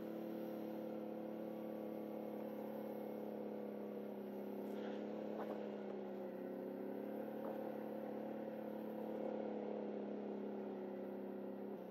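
ATV engine running steadily at low, constant speed, a level engine hum with a few faint clicks.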